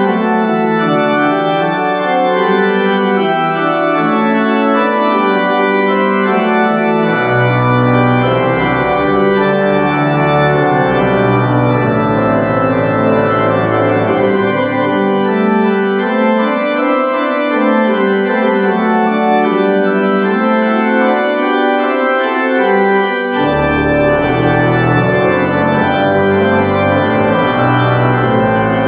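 Church organ played from a multi-manual drawknob console: slow chords of held notes. Deep pedal bass notes come in about seven seconds in, drop out around sixteen seconds and return near twenty-three seconds.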